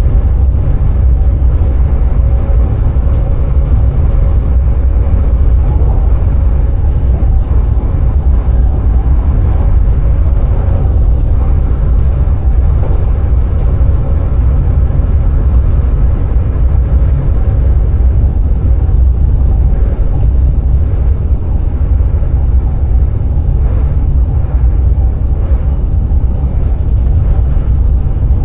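Electric passenger train running at speed, heard from the driver's cab: a loud, steady low rumble with a faint steady hum over it.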